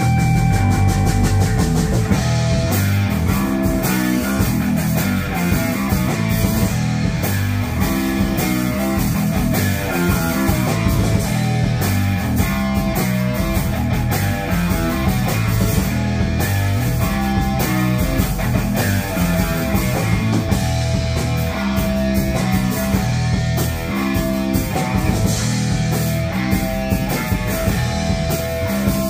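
A live rock band of drum kit, electric bass and electric guitar playing together through amplifiers, with a steady, driving beat.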